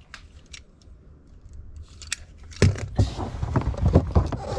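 Rummaging through a pile of stored belongings: scattered clicks at first, then from about halfway a busy run of knocks, clatters and rustling as things are handled and moved.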